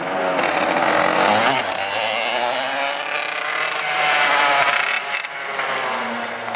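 Racing go-kart engine running hard as the kart drives the course, its pitch rising and falling with the throttle. It gets loud about half a second in and eases off after about five seconds.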